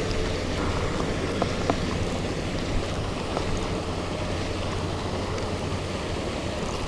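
Steady wind noise on the microphone over water at a pond, with a low hum underneath and a few faint clicks.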